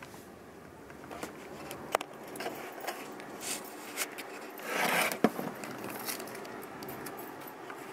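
Handling noise from someone moving around a car while filming: scattered light clicks and rustles, a sharp click about two seconds in, and a brief rushing hiss about five seconds in followed at once by another sharp click.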